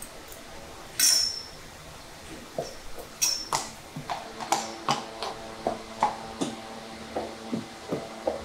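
A sharp metallic clink about a second in and another near three seconds, then a horse's newly fitted steel shoes clopping on concrete and rubber matting at a walk, about two to three hoofbeats a second.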